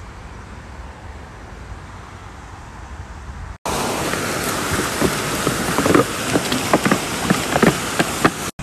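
A steady low outdoor noise, then after a cut about three and a half seconds in, a loud, continuous rush of fountain jets splashing into a foaming pool, with many sharp splashes.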